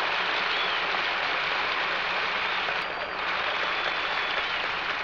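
A large stadium crowd applauding steadily, with a brief dip about three seconds in.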